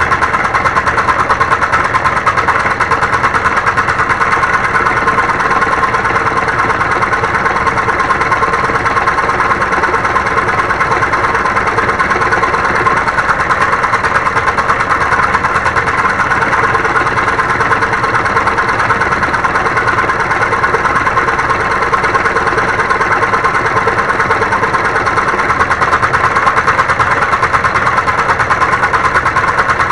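Homemade scroll saw running steadily, its blade chattering rapidly up and down as it cuts wood. The sound starts suddenly and holds an even level.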